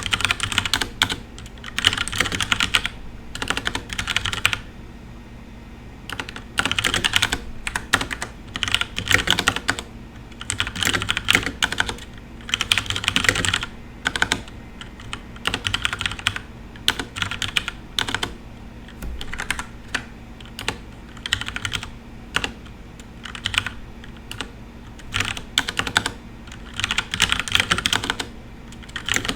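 Typing on a FILCO Majestouch Ninja tenkeyless mechanical keyboard with brown (tactile, non-clicky) switches. The keystrokes come in quick runs of a second or two, with short pauses between them; the longest pause is about two seconds, some five seconds in.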